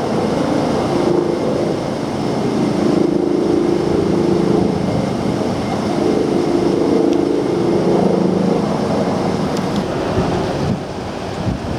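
Sanyo 280-class R22 packaged air conditioner running in heating mode: a steady rush of blown air with a wavering hum underneath, dipping slightly near the end.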